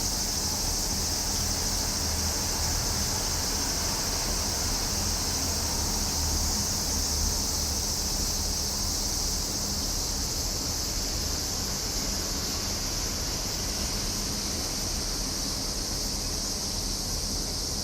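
Cicadas singing in a continuous, steady high-pitched drone, with a faint low rumble underneath.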